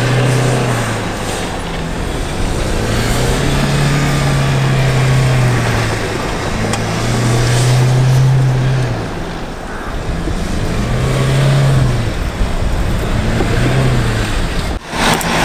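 Mahindra Thar 4x4's engine revving hard as it slides across loose, dusty dirt, with tyre and dirt-spray noise. The revs are held for a couple of seconds at a time and drop in between, about five times over.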